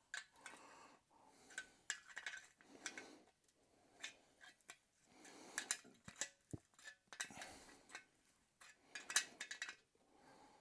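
Faint, scattered metallic clinks and taps of a small spanner and bolts as the stand clip is tightened onto the mudguard, with light handling noise between them.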